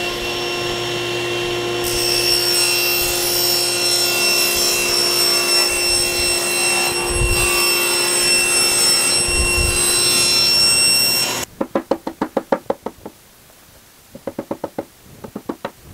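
Table saw running and ripping a sheet of plywood, the blade's steady whine joined by cutting noise for most of the cut; it cuts off suddenly. Then a rubber mallet knocks rapidly, about ten quick taps, and after a short pause more runs of taps, seating plywood spacers into rabbets in a cabinet.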